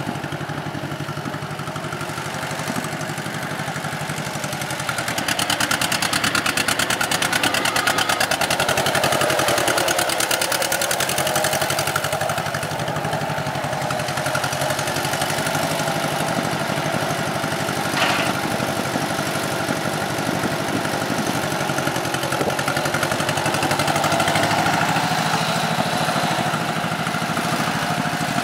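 1951 John Deere MT tractor's two-cylinder engine running steadily as the tractor drives across the field, its even firing pulses growing louder about five seconds in.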